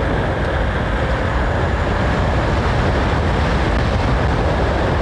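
Steady wind rush and buffeting on the microphone of an e-bike riding at speed on a gusty day, with road noise underneath.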